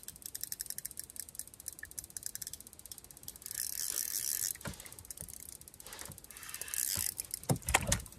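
Spinning reel being cranked to bring in a hooked trout, its gears clicking rapidly and steadily. Two short louder buzzing stretches come about halfway through and near the end, and a few knocks come just before the end.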